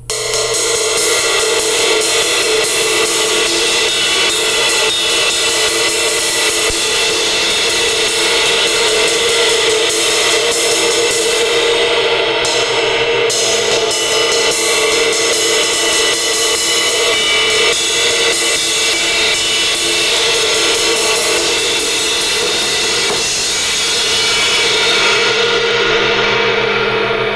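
Zildjian K 18-inch ride cymbal, freshly repaired by cutting out about six edge cracks, struck over and over in quick succession into a loud, steady wash. Near the end the strikes stop and the cymbal rings out, the brightest part fading first.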